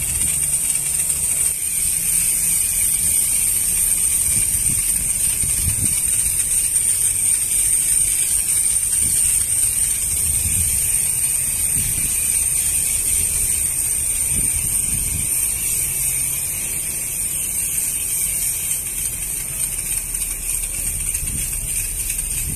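High-pressure water jet from a pressure-washer lance blasting the steel tank and the tyres and wheels of a tanker trailer: a steady hiss of spray over a low hum.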